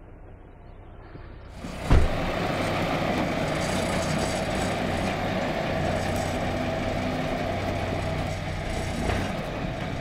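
Truck engine starting with a sudden loud onset about two seconds in, then running steadily.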